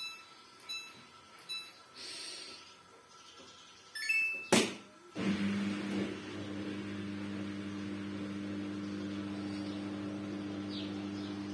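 Samsung front-loading washing machine control panel beeping at button presses, then a short rising chime about four seconds in, followed by a sharp click. The machine then starts a steady low electric hum that holds to the end.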